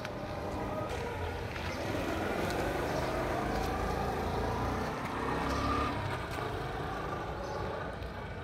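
Steady low outdoor rumble, swelling a little about five seconds in.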